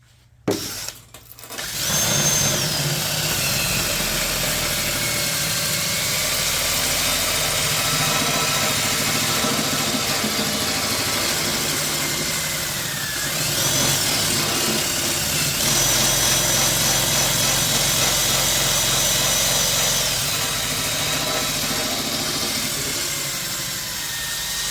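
Electric power tool spinning a wire brush against rusty metal, a loud steady run with a high whine that sags and recovers in pitch as the brush is pressed on and eased off.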